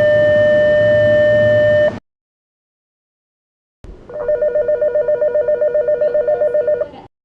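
Electronic station departure bells on the Sotetsu Line. A steady electronic tone cuts off about two seconds in. After a short silence comes a warbling two-note electronic bell that trills about eight times a second for about three seconds, then stops.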